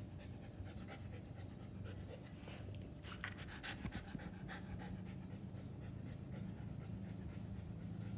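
Husky puppy panting in quick breaths, clearest a few seconds in, over a steady low hum.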